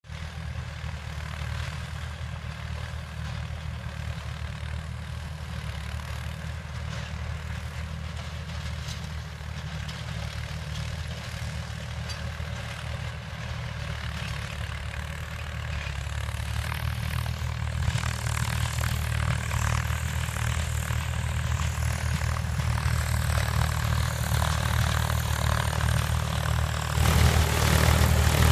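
Mahindra 295 DI Turbo tractor's turbocharged diesel engine running under load while pulling a 6-foot rotavator, a steady low drone. It grows louder as the tractor comes closer, with a jump in loudness near the end.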